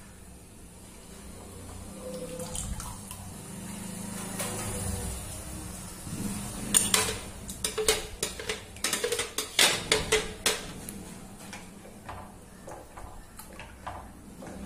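Rice-and-sago batter pouring into boiling water in an iron kadai, then a metal spoon knocking and scraping inside the mixer jar to empty it, making a run of sharp clinks about halfway through. Near the end a ladle stirs the batter, clicking lightly against the pan.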